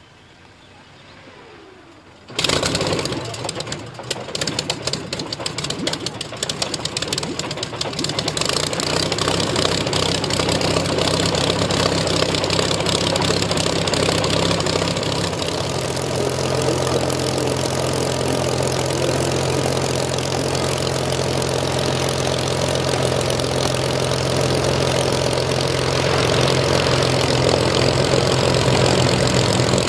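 A vintage biplane's piston aero engine, turned by a Hucks starter, catches suddenly a couple of seconds in. It fires raggedly at first and then settles into a steady run.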